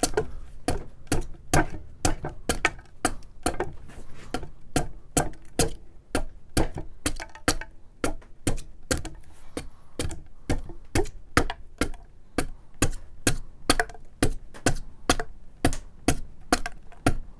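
Hand adze chopping into a wood block in a steady rhythm of short, sharp knocks, about three chops a second. This is cross-grain adze texturing: each light chop cuts a small scoop, worked in rows.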